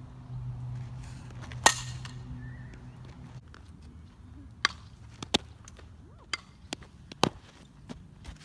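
A softball bat strikes a ball with one loud, sharp crack and a brief ring, over a steady low hum. A few seconds later come several lighter, sharp knocks.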